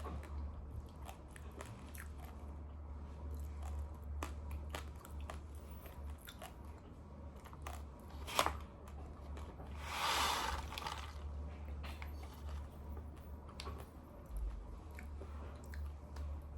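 Raw uncooked rice grains being chewed, many small sharp crunching cracks, with one louder crack about eight seconds in. A brief hiss follows a couple of seconds later, over a steady low hum.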